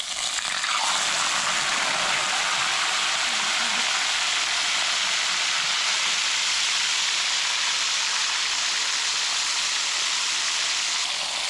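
Marinated fish frying in hot oil: a loud, steady sizzle that sets in suddenly, as when the fish goes into the pan.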